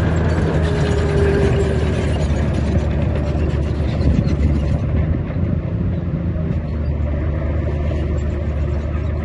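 A heavy diesel construction machine's engine running steadily, with a continuous low hum and many small mechanical clicks and knocks over it.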